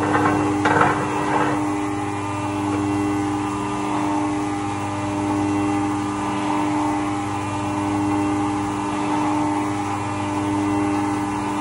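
Haas CNC vertical mill's spindle running with a steady pitched whine while an end mill cuts a metal part under flood coolant, the coolant spray hissing. A louder, rougher burst of cutting comes in the first second and a half, and the level then swells and eases slowly as the tool moves through the cut.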